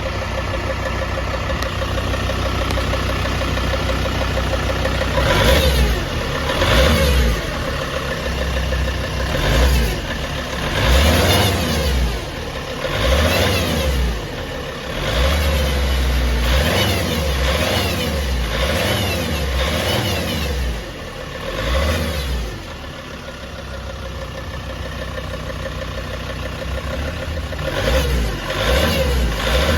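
Mercedes ML 270's turbocharged diesel engine idling, then revved over and over, each rev rising and falling, settling back to a steadier run and revving again near the end. It makes a strange noise from above the catalytic converter, which the owner suspects is the turbo, heard while the engine is still below about 80 °C.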